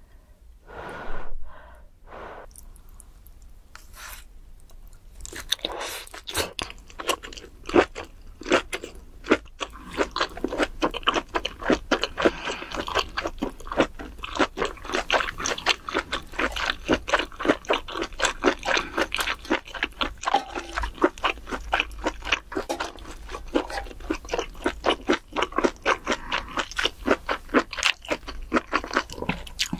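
Close-miked chewing of a big mouthful of grilled pork: a bite about a second in, then from about five seconds in, fast, crunchy, wet chewing that keeps on.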